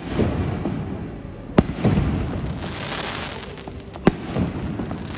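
Aerial firework shells bursting: three sharp bangs, at the start, about a second and a half in and about four seconds in, with crackling and rumble between them.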